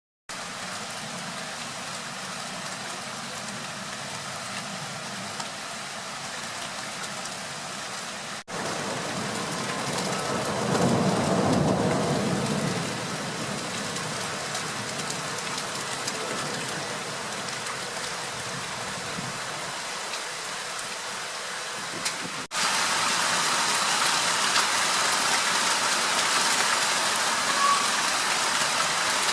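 Rain falling steadily, with a low rumble of thunder swelling and fading about ten to thirteen seconds in. After a brief break about two-thirds of the way through, the rain is louder.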